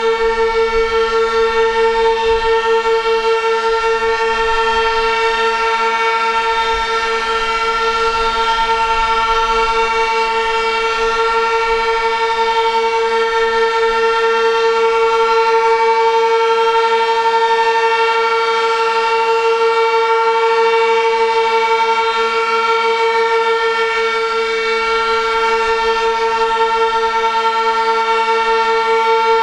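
Outdoor warning siren being tested, sounding one steady high tone with strong overtones at full speed, its loudness swelling and dipping slowly.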